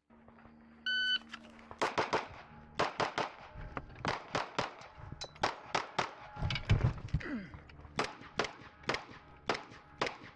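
An electronic shot-timer start beep about a second in, then rapid 9 mm pistol fire from a Glock 17: a long string of quick shots, often in pairs, with a brief pause a little after halfway before the shooting resumes.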